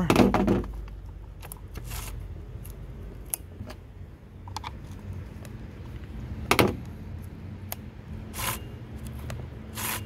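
Scattered metal clicks and light scrapes from handling a Ryobi chainsaw's chain and bar while the chain tension is being set, with a sharper knock about six and a half seconds in.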